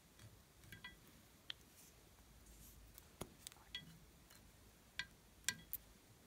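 Near silence broken by a scattered series of faint, sharp clicks and light clinks, some with a brief ring, from marker pens and their caps being handled against a glass dish. The sharpest click comes about three seconds in, the loudest a little before the end.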